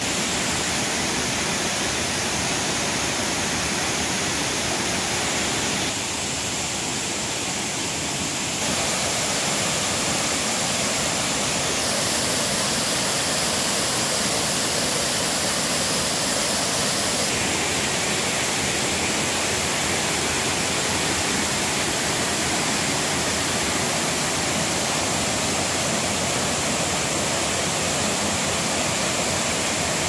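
Water rushing steadily over the rock ledges and cascades of a small forest waterfall. The sound is loud and even, with sudden small changes in level and tone a few times, at about 6, 9, 12 and 17 seconds in.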